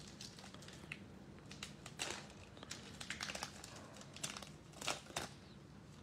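Trading-card pack wrapper being torn open and crinkled by hand: scattered short crackles and rustles, with louder tearing about two seconds in and again near the end.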